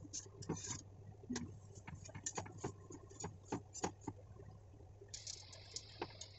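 Metal spatula tapping and pressing a lachha paratha on an iron tawa: a string of irregular light clicks. About five seconds in, a steady sizzle starts as ghee is spooned onto the hot paratha.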